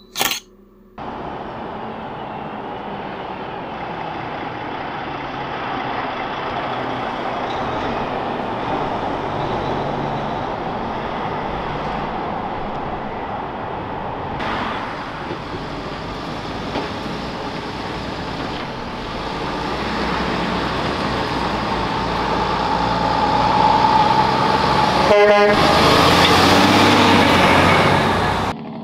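Heavy truck driving by in traffic, its engine getting steadily louder and loudest over the last few seconds before cutting off.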